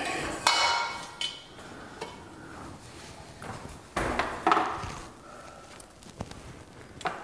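Scattered clinks and knocks from hands working the parts of a ceiling-mounted hose reel, its side cover and drum being handled. The first clink, about half a second in, rings briefly; more follow near four seconds and just before the end.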